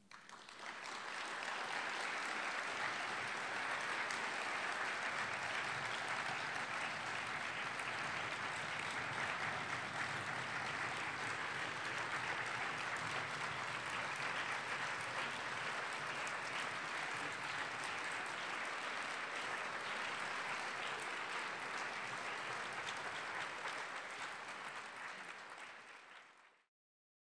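Large audience applauding at the close of a lecture: the clapping swells in the first second, holds steady, then fades and cuts off to silence near the end.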